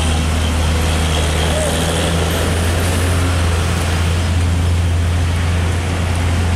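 Heavily loaded diesel cargo truck straining up a steep bend, its engine labouring under the weight with a steady low drone, mixed with passing road traffic.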